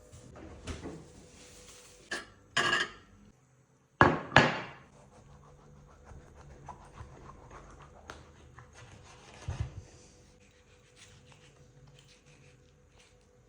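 Kitchen food-prep clatter: utensils and dishes knocking on a hard surface. The loudest knocks come in a cluster about two to four and a half seconds in, followed by quieter handling noises.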